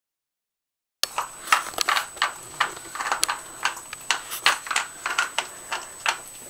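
Two small dogs licking ice cream out of small plastic cups on a hard floor: quick, irregular wet licking smacks mixed with clicks of the cups being nudged along. The sound starts about a second in, after a short dropout.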